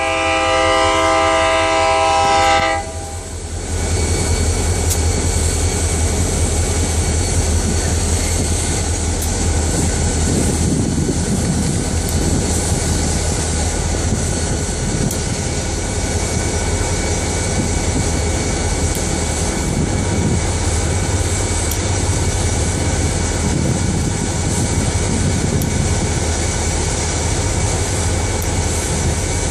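Locomotive air horn sounding one chord that cuts off about three seconds in. Then the steady, deep running of a lash-up of EMD SD40-series diesel-electric locomotives approaching at the head of a freight train.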